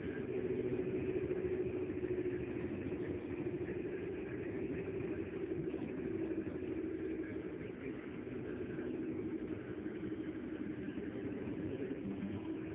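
A car driving at road speed, heard from inside the cabin: a steady drone of engine and tyre noise.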